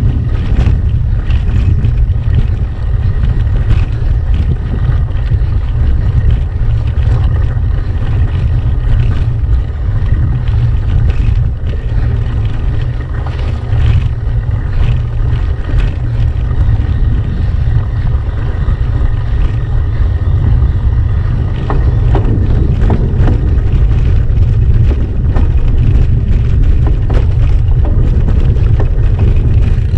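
Wind buffeting the microphone of a camera mounted on a gravel bike as it rides over a rough, stony dirt track, a heavy low rumble. Over it come many small clicks and rattles from the bike's tyres and frame jolting on the stones.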